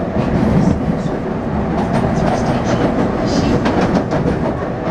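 Taipei Metro C301 train with refurbished propulsion running along the line: a steady rumble of wheels and running gear, with frequent short clicks from the track.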